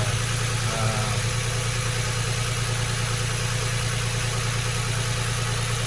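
Infiniti FX35's 3.5-litre V6 idling steadily after a spark plug replacement, running smoothly with no misfire shake by the owner's account.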